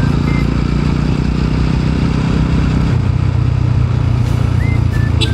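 TVS Apache RTR 200 4V's single-cylinder engine running while riding, its pitch dropping to a lower, steady note about three seconds in.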